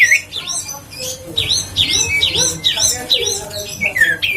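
Common iora (cipoh) singing: a rapid run of clear whistled notes that each dip and rise in pitch, about two or three a second.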